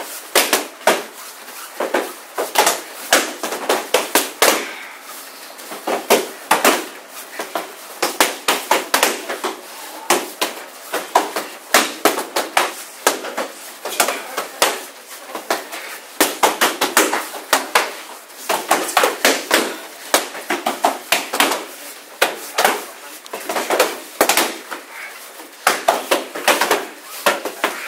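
Punches and kicks landing on hand-held padded strike shields: many sharp slaps in quick, irregular clusters, several pairs striking at once.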